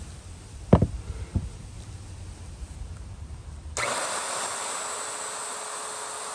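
Two sharp knocks about a second in. Then, near four seconds, a handheld wood router cuts in suddenly and runs at steady high speed: a high whine over a loud hiss, with a steady lower hum.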